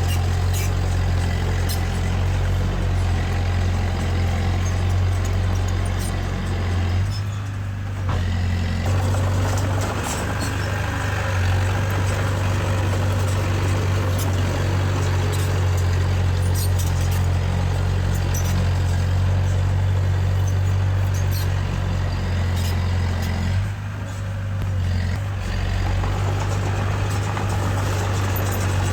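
Diesel engine of heavy earthmoving machinery running with a steady low drone and scattered short clicks. Twice the sound briefly drops away, about a quarter of the way in and again near the end.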